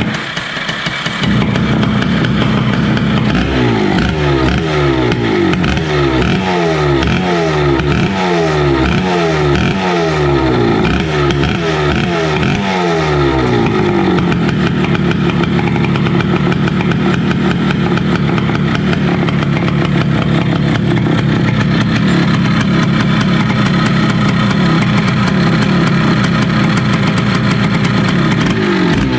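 Two-stroke motorcycle engine in a Honda Titan 150, running through a newly adapted exhaust. It is revved in quick blips about once a second for some ten seconds, each rising and falling in pitch, then held at a steady speed.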